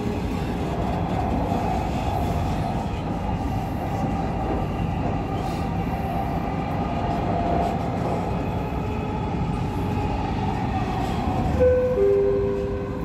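Dubai Metro train running between stations: a steady rumble with a faint hum. Near the end the onboard chime sounds, two held notes, the second lower than the first, ahead of the next-station announcement.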